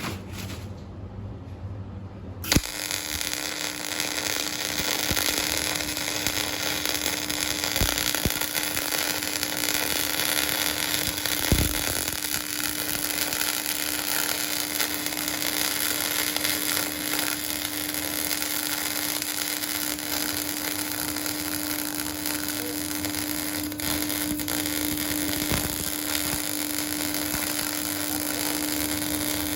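Electric arc welding: the arc strikes with a sharp crack about two and a half seconds in, then runs as a steady crackling hiss with a constant tone through it, during a welding exam.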